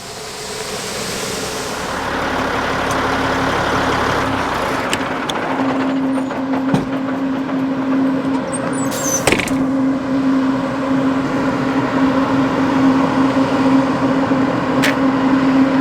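A vehicle running steadily, its noise building over the first few seconds, with a steady drone coming in about five seconds in.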